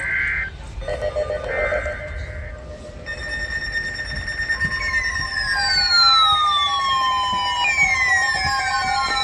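Emergency Alert System signalling between two broadcast warnings. It opens with the tail of a digital header, short buzzy two-pitch data bursts. About three seconds in a steady electronic alert tone starts, and long falling siren-like sweeps cross it twice.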